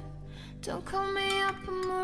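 Background music: a gentle melody of held notes that slide down at their ends, over plucked guitar.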